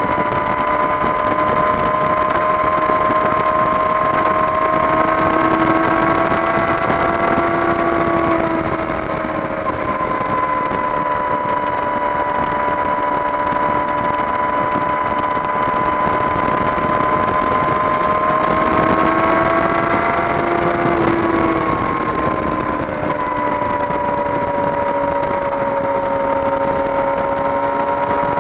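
Yamaha YZF-R6 600 cc inline-four engine running at highway cruising speed through a Jardine aftermarket exhaust. The engine note holds steady, rises briefly twice and settles back, over a continuous rushing noise.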